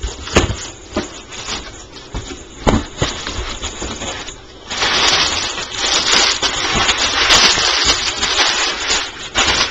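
A parcel holding a vintage stereo being opened by hand: a few knocks and scrapes, then about five seconds of loud rustling as the packaging is pulled away.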